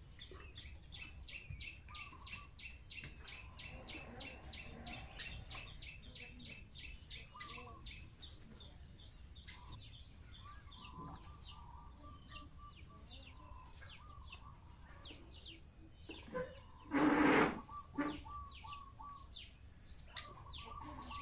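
A woodpecker makes a rapid, even series of short, sharp high sounds, about five a second, for about eight seconds. Lower repeated bird notes follow. About two-thirds of the way through, a loud noisy burst lasts about a second.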